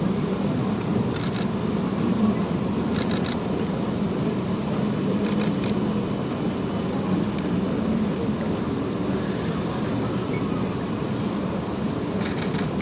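Steady low-pitched outdoor background noise, with a few faint short clicks along the way.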